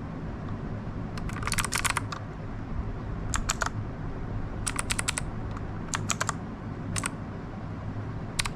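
Keystrokes on a Royal Kludge RK61 mechanical keyboard: short clusters of sharp key clicks, a few presses at a time, about six groups, over a steady low hum.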